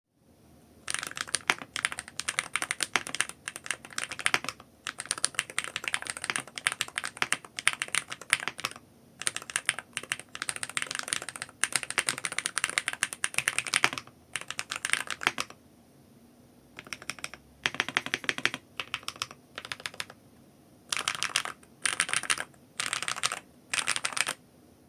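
Stock, unlubricated Gateron Jade Delta (Dark) switches in an SC Bridge 75 HE keyboard being typed on fast, in runs of rapid keystroke clicks broken by short pauses; near the end, four short separate bursts.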